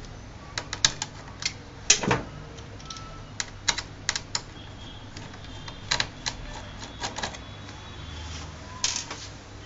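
Irregular sharp clicks and taps of a small screwdriver working the screws on a Lenovo G550 laptop's LCD hinge, with metal and plastic parts knocking as they are handled. The loudest click comes about two seconds in.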